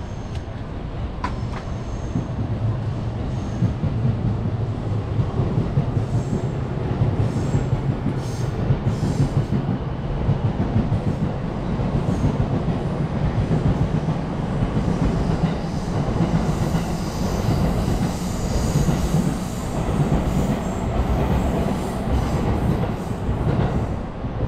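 A train passing on rails: a sustained low rumble of wheels on track, swelling a few seconds in and holding for the rest of the time, with faint high-pitched wheel squeal now and then.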